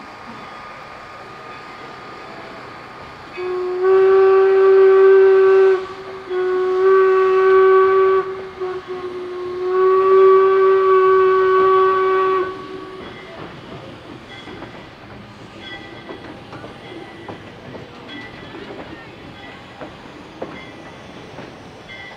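Steam locomotive whistle blown in three long blasts of one steady pitch, followed by the quieter rumble and clatter of the train rolling on the rails.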